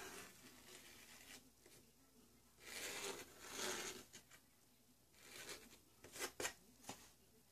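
Faint scratchy brushing: a paintbrush spreading contact cement across a flat sheet, in two spells of strokes about three seconds in and again near six seconds, the second ending with a few light ticks.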